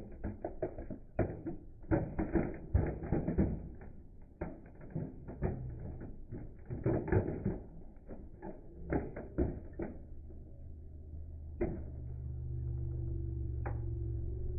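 Plastic body of a remote-control toy car cracking and snapping over and over as a car tyre rolls onto it and crushes it. From about ten seconds in the cracking dies down to a couple of single snaps, and a steady low engine hum of the car standing on the flattened toy comes through.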